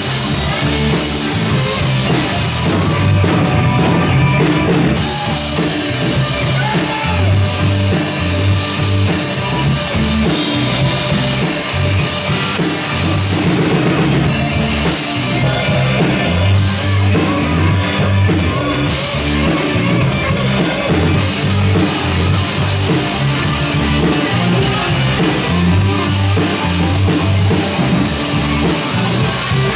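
Live rock band playing, with drum kit and bass driving a steady beat.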